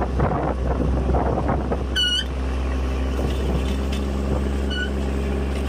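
Trawler's diesel engine running at a steady low drone while towing the trawl net, with the wake rushing and splashing astern, most in the first two seconds. Two brief high squeaks, about two seconds in and near the end.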